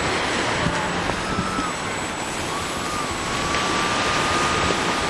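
Radio-controlled aerobatic plane's motor giving a faint, thin high whine that shifts a little in pitch, under a loud rush of wind on the microphone and surf.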